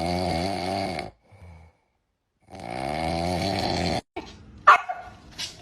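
A dog snoring loudly in two long, wavering snores with a pause between them, followed by a few short, sharp sounds near the end.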